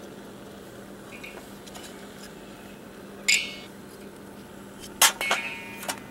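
Split wooden kindling sticks set down on a steel fire pan: a sharp clatter with a metallic ring about three seconds in, then a loud knock and a few quicker clinks near the end, each ringing briefly.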